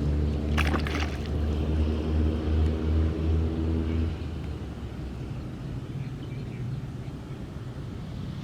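An engine running steadily with a low hum. It stops abruptly about four seconds in, leaving a quieter low rumble.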